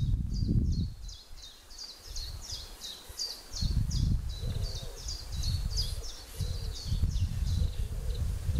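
Wind buffeting the microphone in uneven gusts, easing off for a couple of seconds early on, with a small bird singing a steady run of short, high, falling chirps, about three or four a second.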